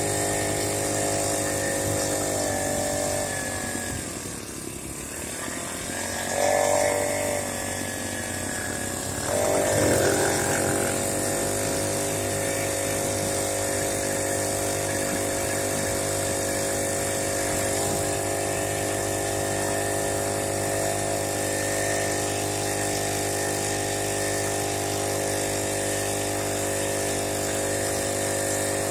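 Small petrol engine of a motorized bicycle running steadily. About four seconds in its pitch dips and then climbs back, with a brief louder stretch around six and a half and ten seconds in, before it settles into an even drone.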